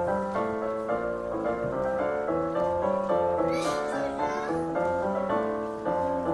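Keyboard playing an instrumental passage, a stepping melody over bass notes, with no singing.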